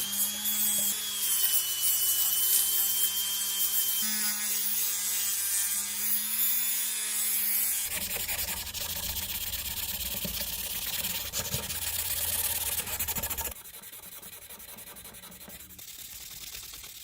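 Power tools at work in short cut-together clips. For the first half a motor-driven tool runs with a steady whine; then a coarse rubbing, sanding noise takes over, dropping quieter over the last few seconds.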